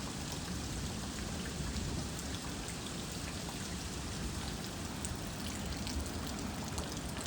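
Steady rushing and spattering of water with a low rumble underneath, from floodwater or heavy rain.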